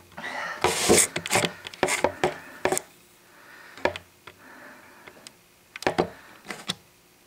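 Handling noise: a spell of rustling and light knocks and clatter over the first three seconds, then a few scattered clicks and taps.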